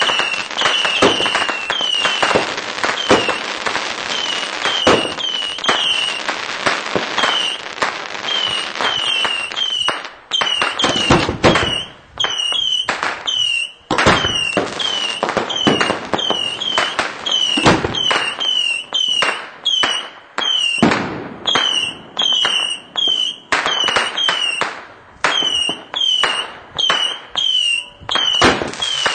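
Consumer fireworks cake (Pyragric compacts) firing shot after shot, each with a short falling whistle. For about the first ten seconds the shots come thick and overlapping, then they fire singly about one to two a second.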